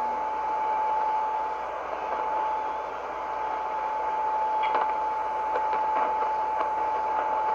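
Shortwave receiver tuned to 7.267 MHz in the 40-metre band, giving a steady hiss of band noise between transmissions. One steady whistle runs through it, and a few crackles of static come about five seconds in.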